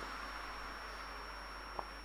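Faint room tone: a steady low hiss with a faint high whine, and one soft click near the end.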